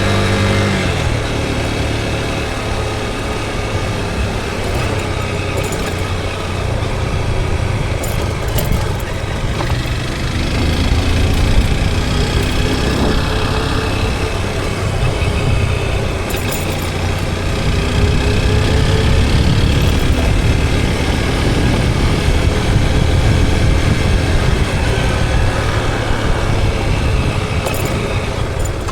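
Motorcycle engine running steadily while riding, its pitch drifting gently up and down with speed, under a constant rush of wind and road noise.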